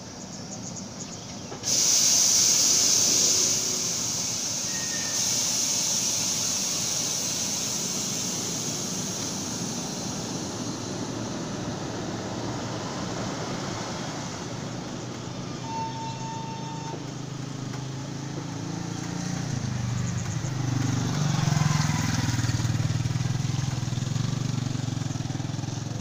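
Electric multiple-unit commuter train running over the tracks and points of a rail yard, a steady rumble. A loud hiss starts suddenly about two seconds in and eases off a few seconds later. Toward the end a low hum grows louder, its pitch shifting.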